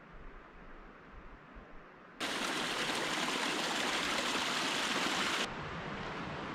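Rushing stream water: a steady, loud rush of water that cuts in suddenly about two seconds in and cuts out about three seconds later, with fainter steady outdoor noise before and after it.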